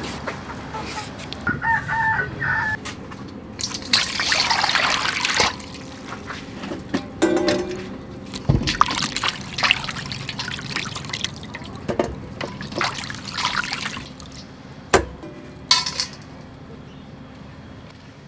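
Water splashing and sloshing in a steel bowl as peeled green mangoes are washed by hand, in several bouts, with a couple of sharp knocks near the end. A chicken calls briefly about two seconds in.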